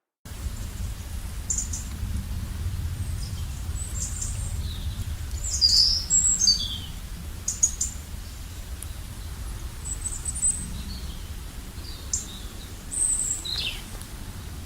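Songbirds chirping in short, high calls every second or two, a few sweeping down in pitch, over a steady low rumble.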